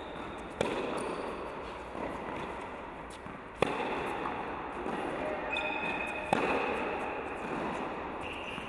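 Tennis ball struck by rackets in a baseline rally, in a reverberant indoor tennis hall: three sharp pops about three seconds apart, each ringing on in the hall, with softer knocks of the ball bouncing between them.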